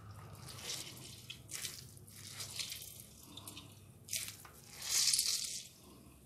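Hands squeezing a fistful of grated bottle gourd (lauki) to press out its water: wet squelching, with water dripping and trickling onto a steel plate in several short bursts. The loudest burst comes about five seconds in.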